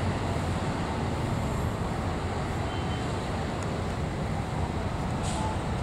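Diesel train approaching, its engine running with a steady low rumble.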